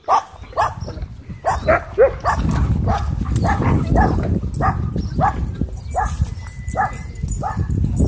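Dogs barking and yelping repeatedly while they wrestle, about two short barks a second, over a low rumble.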